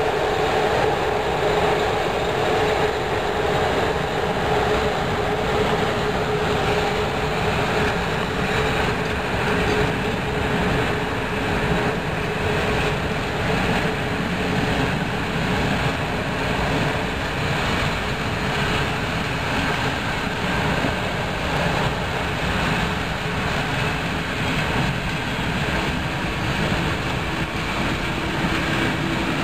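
Passenger coaches of a train hauled by an electric locomotive rolling steadily past, with the continuous rumble and clatter of wheels on rail. A steady hum is heard over it and fades out about halfway through.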